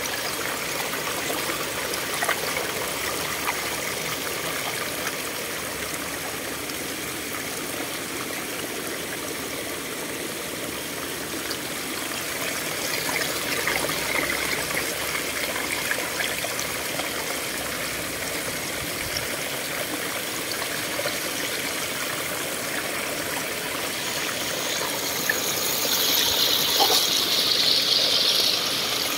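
Shallow stream water gushing and splashing through a gap between rocks, a steady rushing noise. It grows louder near the end, where the water spills over a rock ledge.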